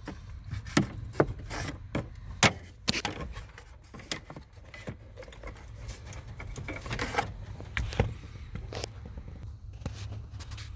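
Irregular clicks, knocks and scraping as an old heater core is pried and wiggled loose in its heater box under a 1984 Ford F-150's dash, with the sharpest knock about two and a half seconds in.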